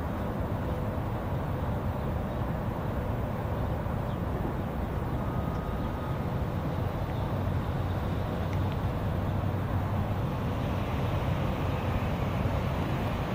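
Steady outdoor ambience: an even, low rumble of distant road traffic, with no distinct events standing out.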